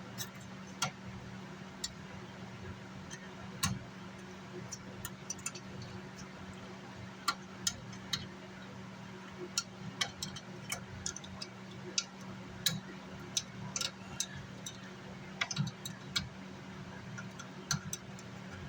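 Scattered sharp clicks and taps of hand tools and small metal parts being handled while a car amplifier is taken apart, over a steady low hum.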